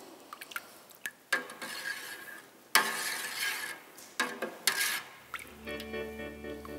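Ladle stirring cut cheese curd in whey in a large metal pot, in a few separate strokes about a second apart, while the curd grains firm up. Background music comes in about five seconds in.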